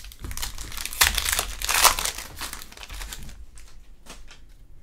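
Foil wrapper of a Panini Prizm trading-card pack being torn open and crinkled by hand, loudest in the first two seconds, then fading to a few faint crackles and clicks.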